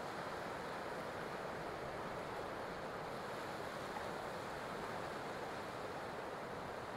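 Steady wash of ocean surf: an even noise with no distinct events.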